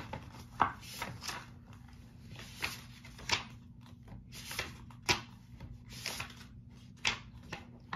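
Pages of a paperback book being opened and turned by hand: paper rustling, with several sharper flicks and taps.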